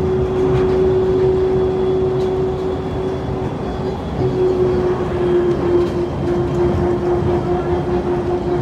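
Inside a moving automated airport people-mover train: a steady motor whine over a rolling rumble. The whine drops slightly in pitch about four seconds in.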